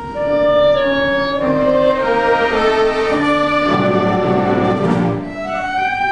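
Orchestra playing an instrumental passage of a waltz with no singing. It swells up about a third of a second in.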